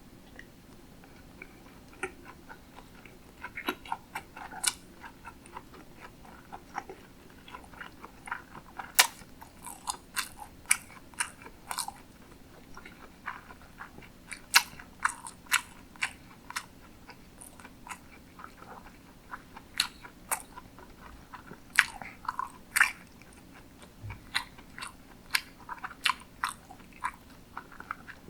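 A person chewing sushi close to the microphone, with many irregular sharp mouth clicks from biting and chewing.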